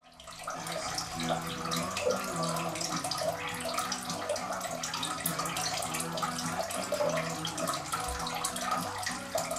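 A stream of tap water from a hose pours into a partly drained aquarium and splashes steadily onto the water surface as the tank is refilled during a water change.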